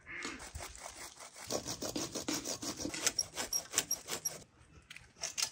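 Hand pruning saw cutting through a lemon tree branch in quick back-and-forth strokes, the strokes stopping a little over four seconds in, with a few more just before the end.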